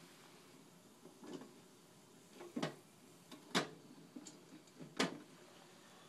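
Stovetop crank-handle popcorn popper being turned, with about four sharp, irregular clacks; the kernels are heating but not yet popping.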